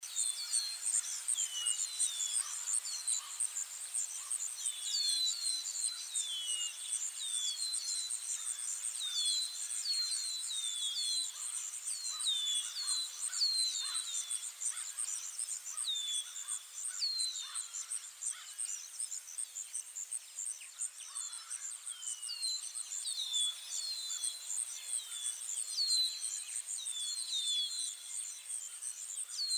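Outdoor ambience: a steady high insect trill, with many short, falling bird chirps repeating over it.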